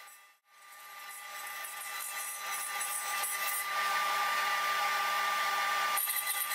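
CNC router spindle running with a steady high whine while a 1/8 inch ball-nose bit makes a 3D finishing pass in walnut. The sound fades out and back in just under half a second in, then grows louder, with a harsher cutting hiss added near the end.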